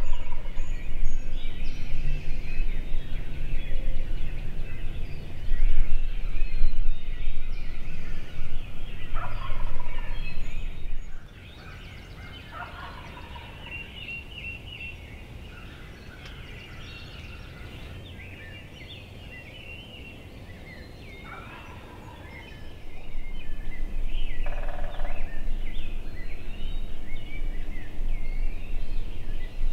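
Wild turkey gobbling several times, short rattling calls spaced through the stretch, with songbirds chirping throughout. A low steady rumble sits under the calls, then drops away for a stretch in the middle.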